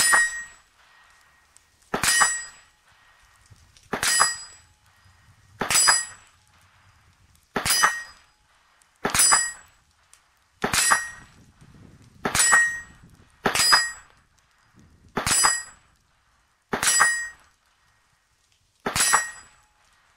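About a dozen .22 LR shots from a Bushmaster Carbon-15 rifle with a .22 conversion bolt, fired one at a time every second and a half to two seconds. Each shot is followed almost at once by the ringing clang of a steel gong being hit about 50 yards away.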